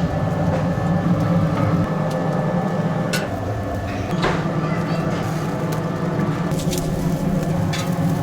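Oak firewood crackling and popping in a few sharp cracks over a steady low hum.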